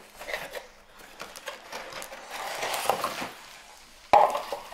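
Cardboard scraping and clear plastic bags of plastic capsules rustling and clicking as a toy kit is unpacked from its box, with one sharp knock about four seconds in.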